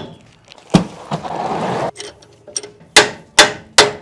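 A hammer striking the bare rear axle hub of a 1999 Ford F-150 three times in quick succession, each blow metal on metal with a short ring. Earlier there is a single knock and about a second of rushing, scraping noise.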